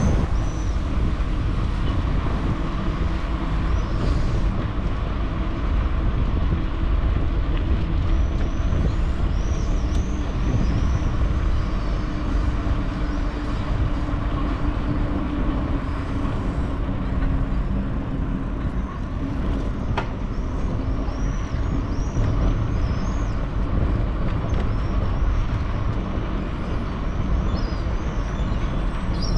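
Steady rumble of a bicycle ride: wind buffeting the microphone and tyres rolling over the street surface. Small high chirps come and go a few times, and a single sharp click sounds about twenty seconds in.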